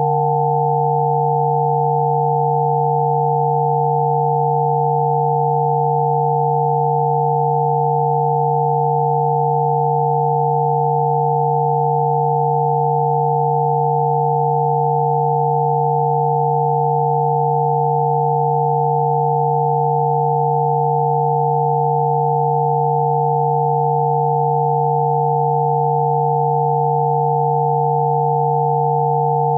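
Synthesized Rife frequency tones: several pure sine tones held together without any change, one low, one in the middle and a higher pair close in pitch.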